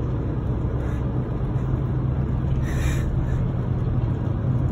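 Semi truck's diesel engine idling, heard from inside the cab as a steady low rumble, with a brief hiss about three seconds in.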